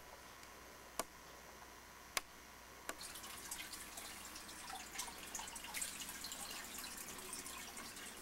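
Faint clicks, three single ones about a second apart, then a steady crackling rustle: handling noise from a handheld camcorder being moved about.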